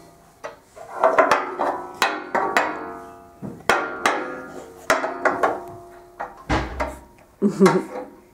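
Wooden ball banged against a metal radiator: irregular sharp strikes, some in quick runs, each ringing on with a metallic tone that slowly dies away.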